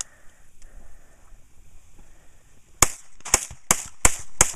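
Gunshots from a carbine-style gun, fired one after another about three a second, starting nearly three seconds in.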